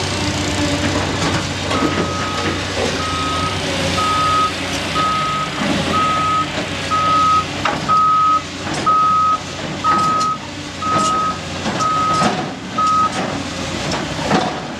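Cat 345C hydraulic excavator's diesel engine running while the machine travels on its steel tracks, with scattered clanks and knocks, the loudest near the end. A backup alarm beeps about once a second from about two seconds in until near the end.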